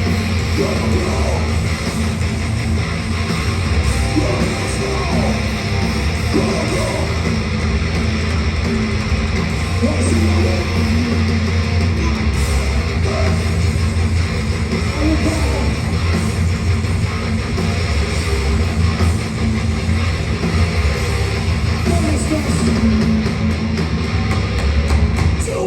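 A metalcore band playing live and loud: heavy distorted electric guitars over bass and drums, with no break.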